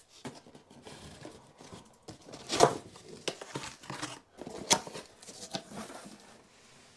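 Corrugated cardboard box being opened by hand: flaps pulled and folded back with scrapes, knocks and crackles, the loudest about two and a half seconds in. Near the end comes the rustle of plastic air-cushion packing being handled.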